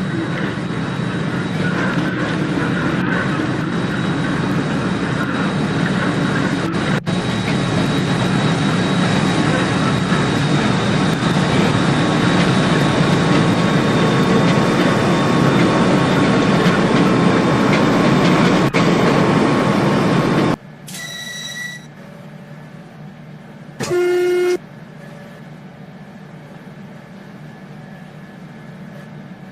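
A train passing close by with a steady rumble of wheels on rails, cut off abruptly about two-thirds in. Then two short train horn toots: a faint high-pitched one, and about three seconds later a louder, lower one.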